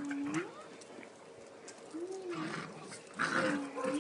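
A dog making short, low whines three times, each rising and falling in pitch, among a group of excited dogs greeting a person.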